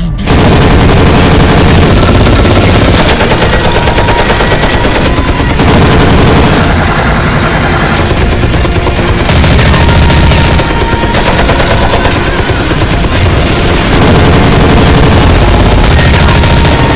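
Sustained rapid machine-gun fire, dense and loud, changing abruptly every second or two as different bursts are cut together.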